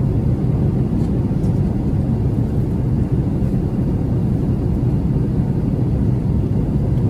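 Steady low rumble of engine and airflow noise inside the cabin of an Airbus A380-800 in flight after takeoff.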